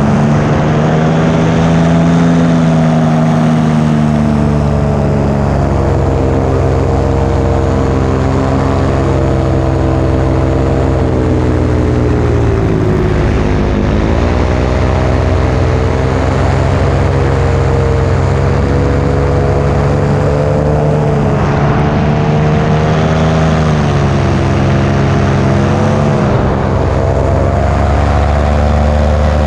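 Paramotor engine and propeller running steadily in flight, heard close up from the pilot's seat over a rushing hiss. The engine's pitch sags for a moment about halfway through and dips again a couple of times near the end before settling.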